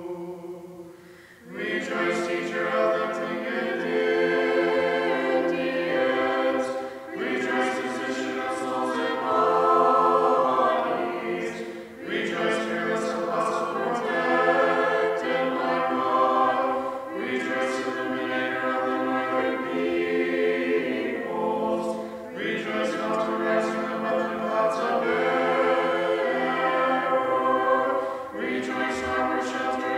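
A choir singing Orthodox liturgical chant a cappella in harmony, in phrases of a few seconds each with short breaths between them.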